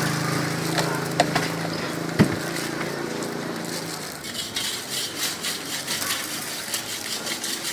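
Scissors snipping through crisp fried dough, with a few sharp snips early on and a quicker run of crunchy ticks in the second half. A steady engine hum runs underneath and fades out about four seconds in.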